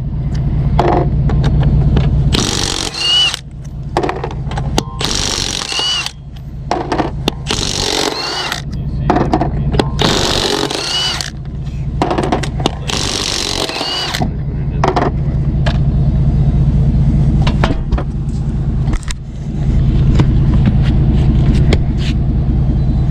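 Impact wrench working lug nuts off a car wheel in short bursts, about five in the first half, each ending in a brief rising whine. A steady low engine rumble runs underneath.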